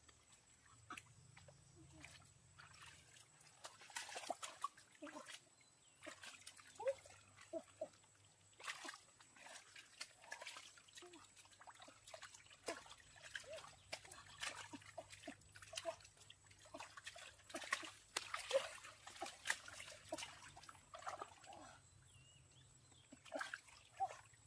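Small irregular splashes and trickles of water, with many light clicks and knocks of things being handled.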